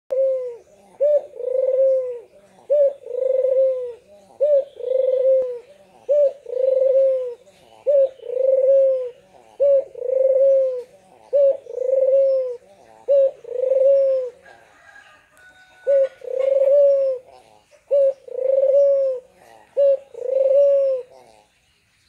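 A white Barbary dove (domestic ringneck dove) cooing over and over, each call a short clipped note followed by a longer rolling coo. About a dozen calls come at an even pace, with one pause of about a second and a half some two-thirds of the way through.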